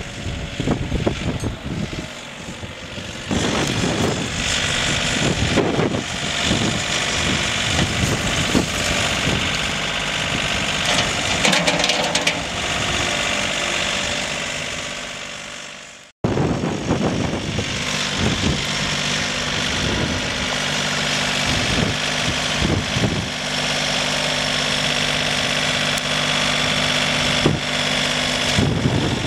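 John Deere 3520 compact tractor's three-cylinder diesel engine running steadily as the tractor drives and digs with its front loader. The sound breaks off for an instant a little past halfway, and irregular knocks run through it.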